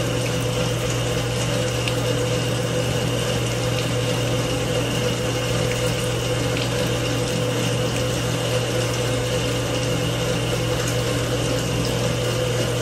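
Micro Filter King cooking-oil filtration machine's pump running steadily, midway through circulating a fryer's oil through its filter and hoses: a constant hum with an even hiss over it.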